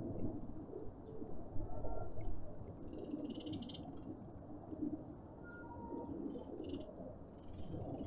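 Doves cooing, low and repeated, with a few short higher bird chirps about three seconds in and near the end.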